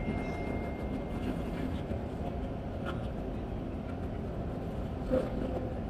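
Steady low rumble of a Dubai Metro train running between stations, heard from inside the carriage.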